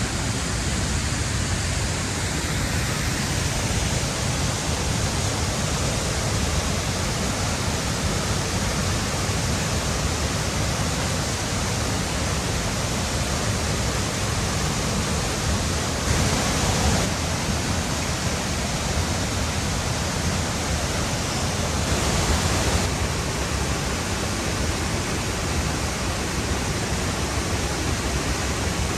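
Rushing water of a mountain stream pouring over rocks and rapids, a steady full roar that swells slightly twice.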